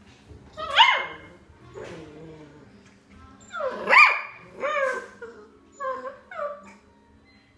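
Rough collie puppy yapping: about six short, high-pitched barks that bend up and down in pitch. The loudest come about a second in and about four seconds in.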